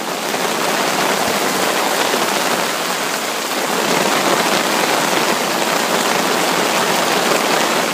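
Heavy rain falling on a river's surface, a steady, even hiss.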